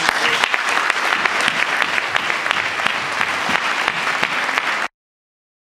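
Audience applauding, many hands clapping together, cut off suddenly near the end.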